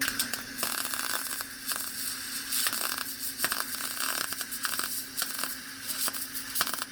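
Craftsman MIG welder with shielding gas and 0.023 wire running a bead on thin, about 20-gauge sheet steel: a continuous crackling arc for about seven seconds that cuts off abruptly near the end, over a steady hum. The weld blows through the thin metal.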